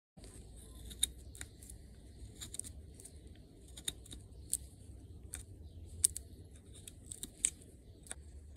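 Carving knife slicing thin shavings from a small block of wood in short strokes, a sharp snick with each cut, irregularly one or two a second, over a low steady rumble.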